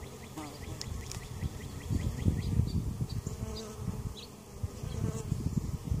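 Honey bees buzzing around an opened hive, the hum growing louder about two seconds in.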